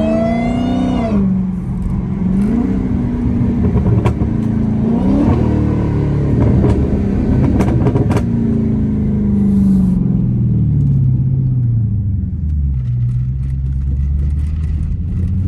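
Dodge Challenger Hellcat's supercharged Hemi V8 under way, pulling hard with the revs climbing through the first second, then rising and dipping several times with a few sharp ticks. From about eight seconds in the revs fall steadily, settling to a low, steady rumble near the end.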